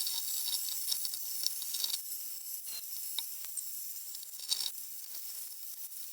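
Underwater crackling hiss picked up by a camera rig on the sea floor, with scattered small clicks and crackles throughout, mostly high-pitched.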